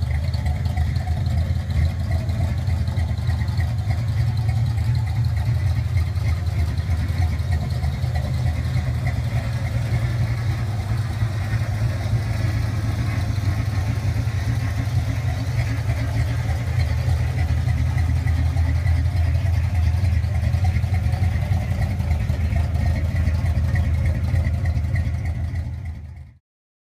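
LT1 V8 in a 1985 GMC S15 Jimmy idling steadily with an even low rumble, fading out near the end.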